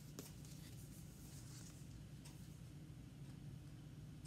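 Faint rustling and scraping of a keyboard protector's paper and plastic packaging being handled and opened by hand, over a steady low hum. A sharp click near the end.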